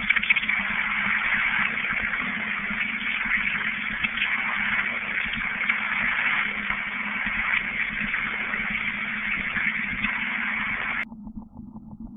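Radio receiver putting out loud hissing static over a steady low hum, disturbed by a nearby mobile phone's transmission. About a second before the end the static cuts off suddenly and gives way to a quieter, rapidly pulsing buzz.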